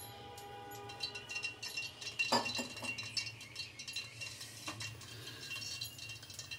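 Steel spoon striking the inside of an aluminium pressure cooker: a ringing clink at the start that fades over about a second and a half, then two sharper knocks about two and four and a half seconds in.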